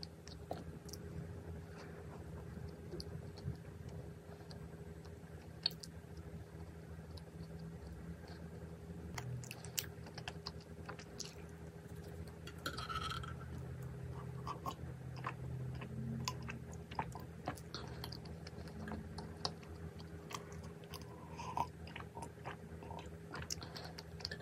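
Close-miked chewing of a soft dessert pastry, with many small wet mouth clicks and smacks.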